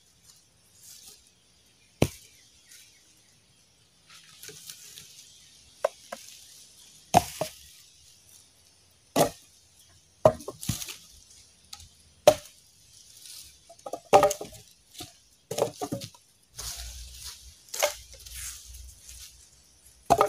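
Wooden sticks and logs knocking and cracking as they are handled and stacked, about a dozen sharp, irregular knocks, with leaf litter rustling between them.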